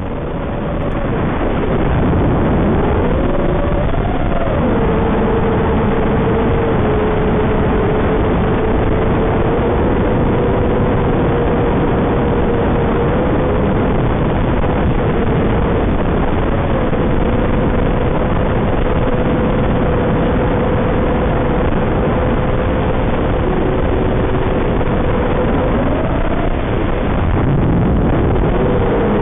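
A 220-size FPV racing quadcopter's brushless motors and propellers in flight, heard through the onboard audio carried on the video transmitter link. It is a loud, steady rushing drone with a motor whine that shifts in pitch with throttle, swooping up about four seconds in and again near the end.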